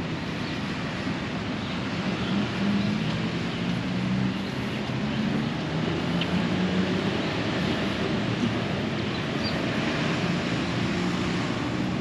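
Steady traffic noise from a nearby road, with a low engine hum running underneath. A few faint high chirps come through near the end.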